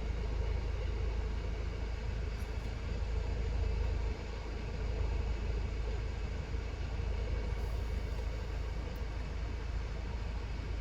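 2004 Vauxhall Movano's 2.5-litre diesel engine idling steadily, with the fridge freezer refrigeration unit running.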